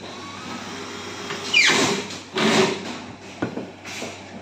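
A wooden board slid and scraped across a laminated shelf top, twice, the first scrape falling in pitch, with a light knock a little after three seconds in.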